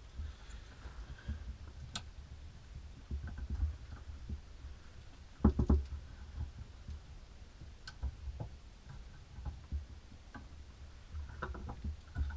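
Handling noise from clamping a flat metal jigsaw base plate in the alligator clips of a helping-hands stand. There are scattered small clicks and taps, with a quick run of several louder knocks about five and a half seconds in.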